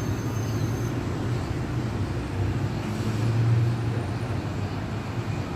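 Car driving through city traffic, heard from inside the cabin: a steady low engine and road rumble that swells briefly about three and a half seconds in.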